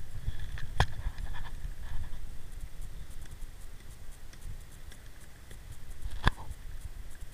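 Wind buffeting the microphone as a low, uneven rumble, with two sharp cracks: one about a second in and a louder one near the end.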